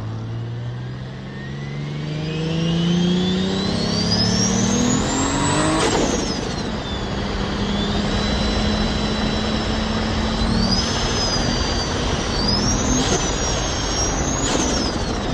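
Turbocharged car accelerating: the engine note climbs together with a loud jet-like turbo whine that rises to a very high pitch, then falls away sharply about six seconds in. The turbo then holds a steady high whine over a steady engine note and spools up again in shorter rising whines, with a couple of sharp clicks near the end. The whine is the kind that the T51R-modified turbo housing is said to give.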